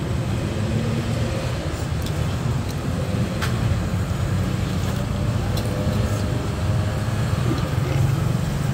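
Steady low rumble of street traffic, with a few light clicks of chopsticks and a spoon against a ceramic soup bowl.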